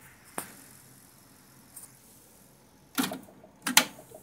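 Mechanical clicks from an Inkel DD-6200 cassette deck: a single sharp click about half a second in, then a cluster of clicks about three seconds in and a louder clack just after, as deck A's cassette door is ejected open.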